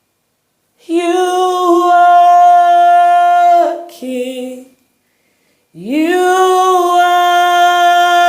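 A solo voice singing unaccompanied, in long held notes without clear words: one long steady note, a short lower note, a pause, then a note that slides up and holds.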